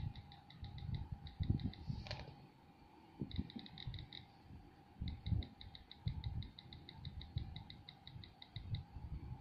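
iPad on-screen keyboard ticking once per key press, in quick runs of about seven ticks a second, the longest and most even run in the second half. Dull fingertip taps on the glass screen sound underneath.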